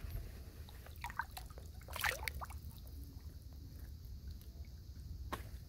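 Faint trickling and small splashes of shallow water around a hand holding a trout under the surface to revive it for release. The splashes cluster a second or two in, over a low steady rumble, with one sharp tick near the end.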